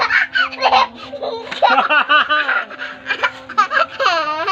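A toddler girl laughing in repeated short peals, rising to a long, high, warbling squeal of laughter near the end as she is swept up.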